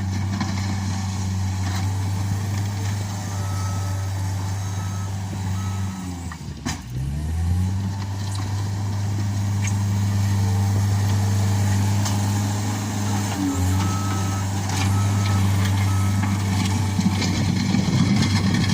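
Case SR130 skid steer loader's diesel engine running steadily; about seven seconds in its pitch dips sharply and climbs back. Its backup alarm beeps in two short runs, about three beeps each, as the machine reverses.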